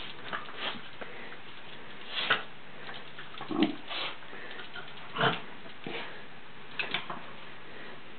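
Scottish terrier sniffing in short, irregular bursts during play.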